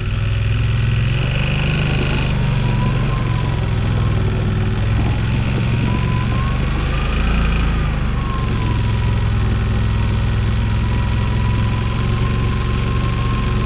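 Yamaha Wolverine X4's parallel-twin engine running steadily just after start-up, on its first run since a flood-damage top-end rebuild. Its pitch rises and falls once around the middle.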